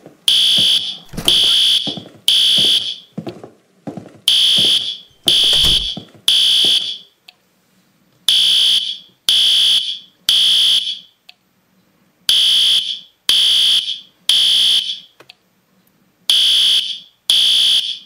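Fire alarm sounding in the three-beep evacuation pattern: three loud, high-pitched beeps about a second apart, then a pause of about two seconds, repeating over and over.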